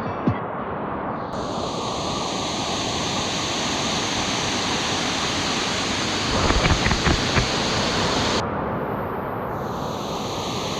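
A 150-foot twin waterfall rushing steadily with a dense, even roar. A short cluster of low thumps comes about six to seven seconds in.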